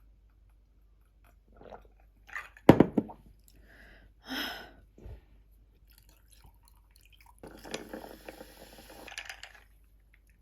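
A person chewing and crunching food close to the microphone. There is a sharp knock about two and a half seconds in, and about two seconds of dense crunching near the end.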